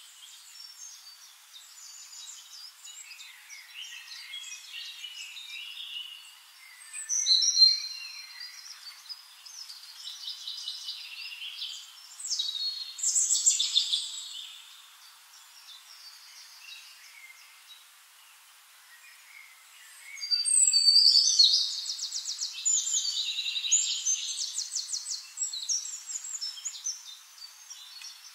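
Birds calling and singing in a chorus of chirps and trills, with louder bursts of song about seven and thirteen seconds in and a longer run of fast, rapidly repeated trilling from about twenty seconds in.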